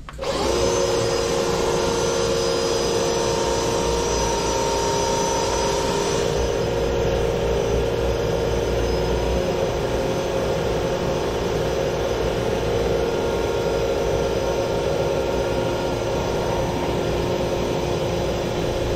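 Cordless drill spinning a flex-shaft drain-cleaning cable inside a kitchen sink drain pipe, switched on by wireless remote. It starts abruptly just after the start and runs at a steady speed as a constant motor whine.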